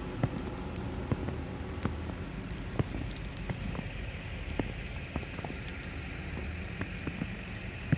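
An engine idling with a steady low hum, overlaid by scattered light clicks and crackles.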